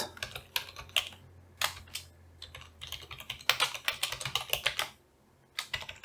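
Typing on a computer keyboard: irregular keystroke clicks, with a quicker run of keys about three and a half seconds in and a short pause near the end.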